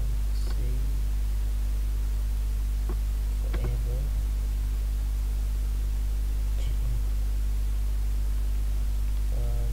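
Steady low electrical hum with a hiss of background noise, the kind of mains hum picked up by a recording setup, broken only by a few faint clicks.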